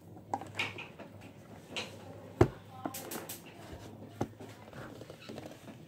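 Scattered clicks and knocks of a plastic Batman Etch A Sketch toy being handled, with one sharp knock about midway. The toy itself gives out no sound: the batteries do not get it working.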